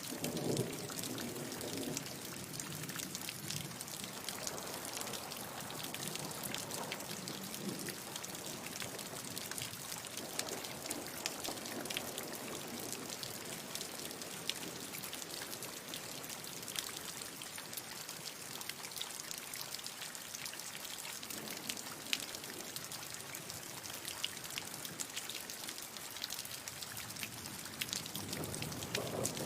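Steady rainfall: an even hiss of rain scattered with many small, sharp drop hits.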